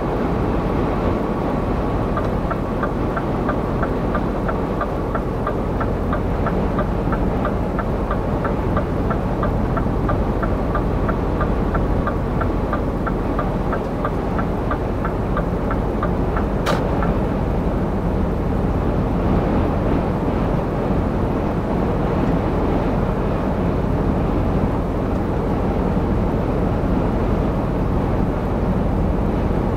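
Cab noise of a Scania R450 truck cruising at motorway speed: steady engine and road rumble. For about fifteen seconds a faint, even ticking of two or three ticks a second runs under it, ending in one sharp click.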